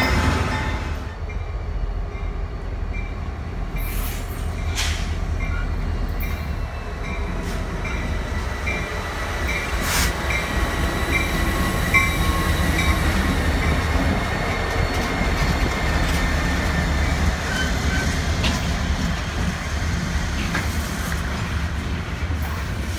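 Freight train with diesel locomotives passing close by, the engines a steady low rumble with the rolling of the cars. A high ping repeats about twice a second through the first half, and a few sharp clanks stand out.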